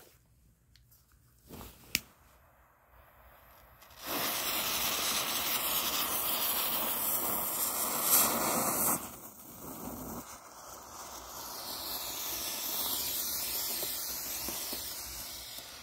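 Colour smoke ball held in the hand, its fuse hissing loudly and throwing sparks for about five seconds, then a softer, steady hiss as the ball pours out coloured smoke, swelling and then fading near the end. A single sharp click comes about two seconds in, before the hissing starts.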